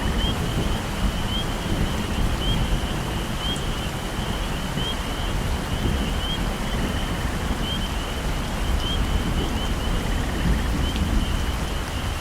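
Heavy rain pouring steadily in a tropical forest, with a deep, steady rumble underneath. A small animal repeats a short, high chirp about every second throughout.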